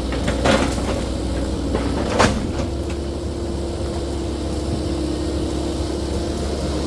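Caterpillar 308E2 mini excavator running under work, a steady engine hum with a held tone that steps up slightly about two and a half seconds in. A few sharp knocks come in the first couple of seconds, the loudest about two seconds in.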